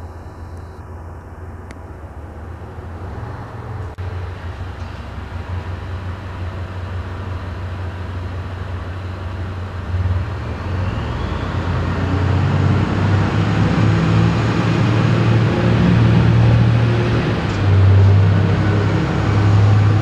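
Passenger train departing along the platform below, a low rumble of motors and wheels that grows steadily louder as it passes.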